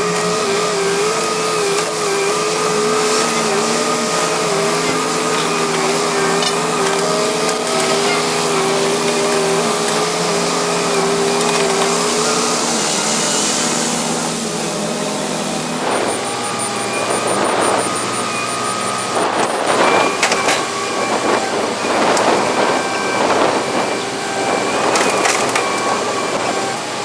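Heavy excavator engine and hydraulics running with a wavering whine, then from about halfway through a dense run of cracking and crunching as material is broken up, typical of demolition work.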